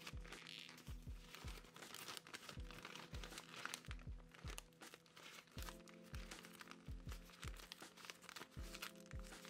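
Brown kraft paper bag crinkling and rustling as it is unfolded and opened by hand, over soft lo-fi music with a steady beat and held chords.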